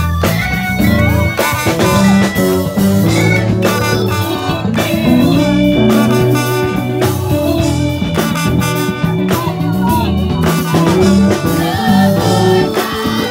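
Live gospel music: a band playing while a choir sings.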